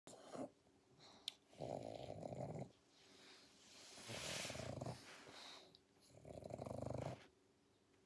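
A sleeping pug snoring: about four rattling, fluttering snores roughly every two to two and a half seconds, one of them in the middle a breathier, hissing breath. This noisy breathing in sleep is typical of the pug's short, flat-faced airway.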